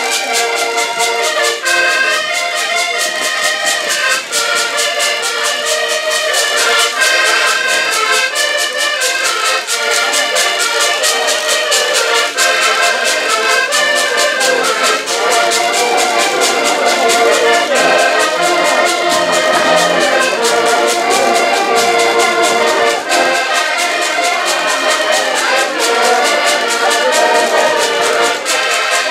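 An ensemble of piano and button accordions playing a tune together, with a steady beat.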